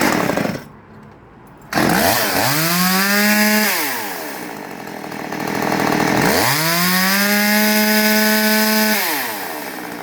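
Stihl MS 192T top-handle two-stroke chainsaw firing up about two seconds in, after a short burst of noise at the very start. It is revved to full throttle twice, a short blip and then a longer hold of a few seconds, settling back to idle after each: a warm engine that starts easily and runs cleanly.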